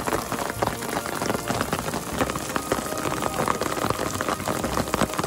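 Hail falling, a dense steady patter of small ice pellets striking.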